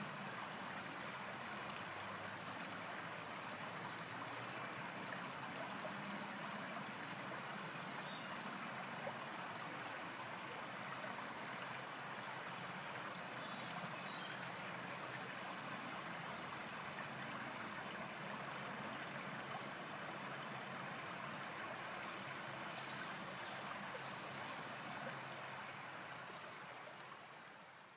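Shallow stream babbling steadily over stones, with a songbird singing short high phrases every few seconds. The sound fades out near the end.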